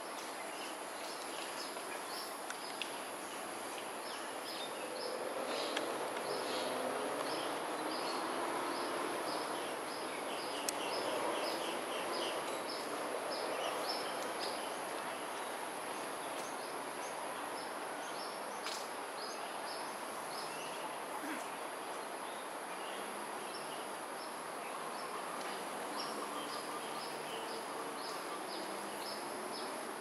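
Outdoor ambience: a steady high-pitched insect drone with many short, high chirps repeating through it, and a low murmur that swells for several seconds about a third of the way in.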